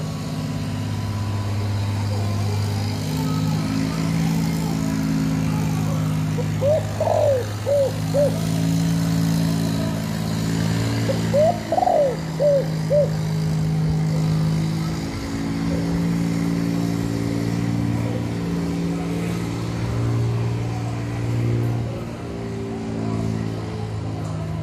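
Spotted dove cooing twice, a short phrase of several notes each time, about seven and twelve seconds in, over a steady low droning hum.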